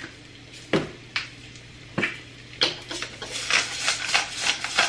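Hand-twisted pepper mill grinding pepper over a pan, a fast run of short scratchy clicks from a little past halfway, after a few separate knocks near the start.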